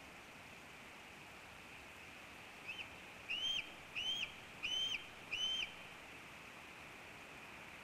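A bird calling a short run of five high whistled notes, evenly spaced about two-thirds of a second apart, over a steady background hiss.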